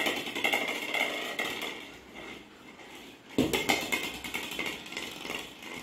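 A golden retriever puppy scrabbling and rolling on a hard polished floor: scratchy clicking and light knocks, with a sharper thump at the start and another about three and a half seconds in.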